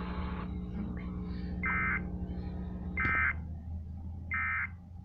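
Emergency Alert System end-of-message signal: three short bursts of warbling digital data tones, about a second apart, closing a tornado warning broadcast. The radio hiss of the voice message cuts out about half a second in, just before the bursts.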